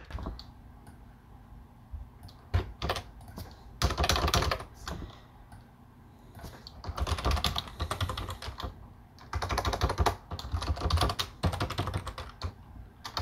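Computer keyboard typing in bursts of quick keystrokes, with short pauses between the bursts.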